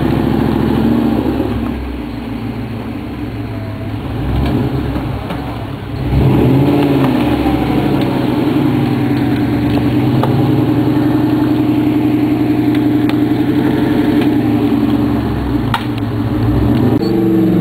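BMW V8 engine in a Mercedes G-Class off-roader revving hard as the truck churns through deep mud. It eases off for a few seconds, gives a sharp rev about six seconds in, and then holds at high revs.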